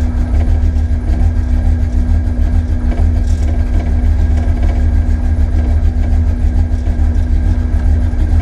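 The twin-turbocharged 393 cubic-inch small-block V8 of a 1965 Ford Mustang idling steadily, heard from inside the cabin, with a deep, even low rumble.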